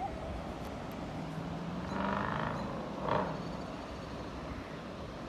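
Low, steady engine rumble from a distance, with a faint hum swelling in the middle and a brief louder sound about three seconds in.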